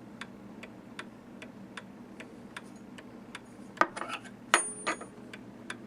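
Antique Gilbert pendulum mantel clock ticking steadily, about two and a half ticks a second. About four seconds in, a few louder clicks and a short high metallic ring.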